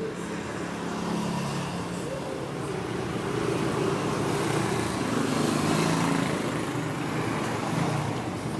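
A motor vehicle engine running, its pitch drifting up and down, amid road traffic noise.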